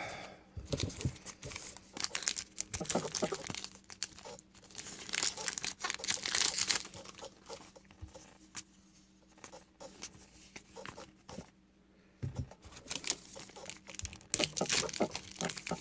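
2018 Topps WWE Heritage trading cards being handled and flicked through one by one: irregular rustling, flicking and crinkling of cards and pack wrapper, with a quieter stretch in the middle.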